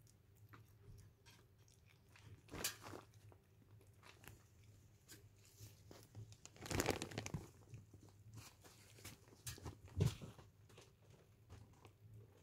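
Tuxedo mother cat chewing and crunching on the remains of a dead newborn kitten: a run of small wet clicks and bites, with three louder bursts of crunching, the loudest late on.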